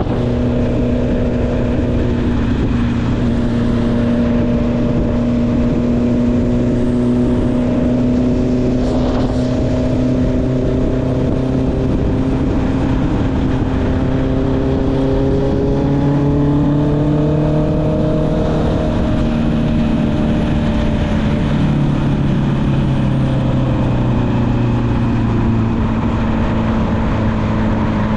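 Honda CB650R's inline-four engine through an Akrapovic exhaust, running steadily at a cruise under way. Its note rises gently about halfway through, then drops back, with a low rush of wind underneath.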